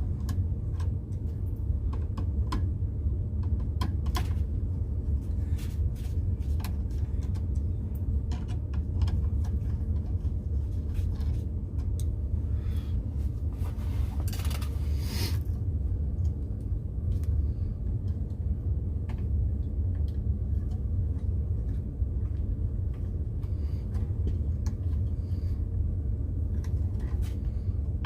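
A steady low rumble throughout, with scattered small clicks and taps of hand tools, and a brief scraping rustle about halfway through, as the wiring is disconnected from a well pressure switch.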